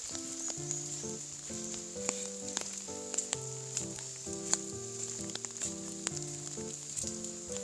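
Background music: a light melody of short, stepping notes over a steady crackling hiss.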